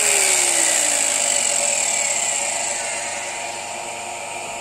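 A 450 W electric jigsaw winding down after being switched off, its whine falling steadily in pitch over about three seconds. Underneath, the induction motor and generator set keeps running with a steady hum and high whine.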